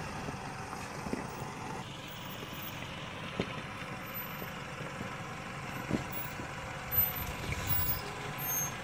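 A 4WD ute's engine running at low revs as it crawls slowly over loose rocks, with a few sharp knocks of tyres and body on rock.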